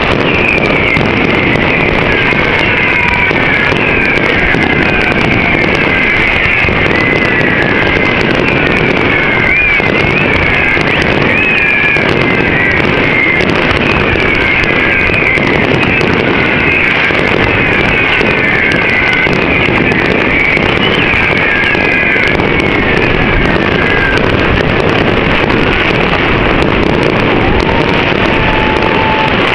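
A steady, loud rush of wind on the microphone, with faint wavering whistles over it.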